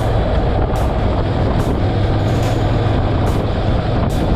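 Honda NC700X parallel-twin motorcycle cruising at about 54 km/h in the rain: steady wind and wet-road noise over a low engine hum, with a faint tick about once a second.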